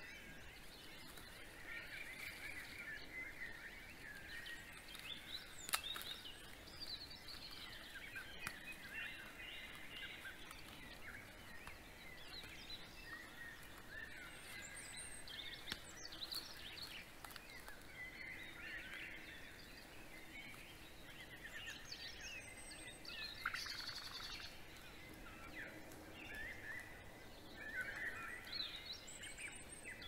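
Several songbirds singing in overlapping, chirping phrases: a pre-dawn chorus in spring forest. A single sharp click comes about six seconds in.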